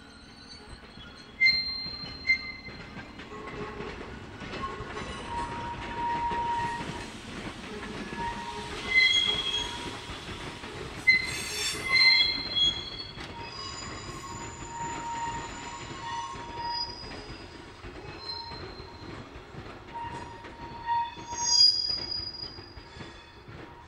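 Steel wheels of a 103-series electric train squealing as it rolls through the yard tracks. The squeals come again and again, shifting in pitch, with sharp clicks and knocks from the wheels and rails. The loudest squeals are about a second and a half in, around nine and twelve seconds, and near the end.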